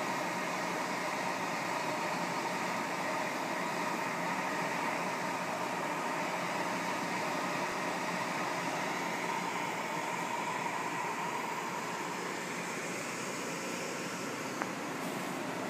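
Clamco 120 shrink tunnel running: the steady rush of its hot-air blower, with a faint steady whine in it.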